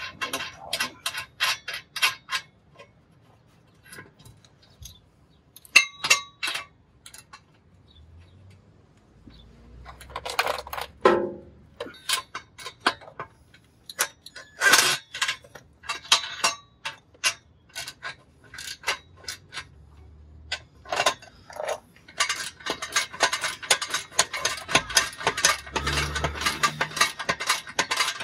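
Metal clinks and knocks of exhaust flange hardware being handled and fitted under a car. Near the end a ratchet wrench is cranked in rapid, steady clicking as a flange bolt is run in.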